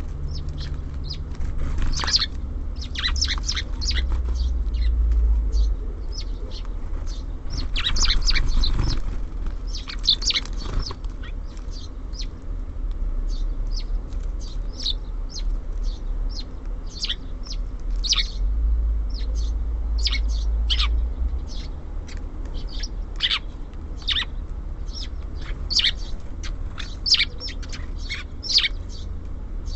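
Small songbirds chirping: many short, high chirps that keep coming, with busier flurries about two, eight and ten seconds in, over a steady low rumble.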